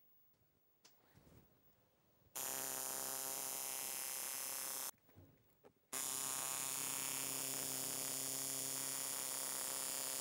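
Electric tattoo machine buzzing steadily. It starts abruptly about two seconds in, cuts out for about a second midway, then starts again.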